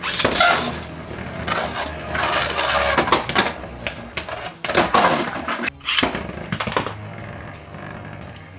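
Beyblade battle: spinning tops, one of them a 3D-printed Beyblade, clashing and grinding against each other, in loud bursts of clacking and scraping that start suddenly and ease off after about seven seconds.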